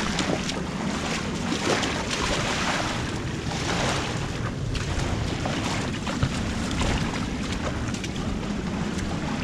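Wind rumbling on the microphone over small waves lapping the shallow shore, with faint scuffs of steps on wet sand.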